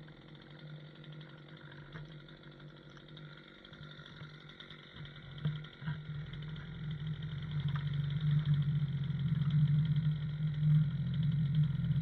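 Stihl Farm Boss two-stroke chainsaw running at a steady pitch. It gets louder through the second half as the bar is brought down and starts cutting into a large log.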